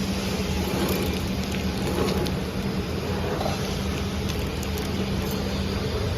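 Flow pack (horizontal pillow-pack) wrapping machine running: a steady mechanical hum over a constant noisy whir, with a few faint light clicks.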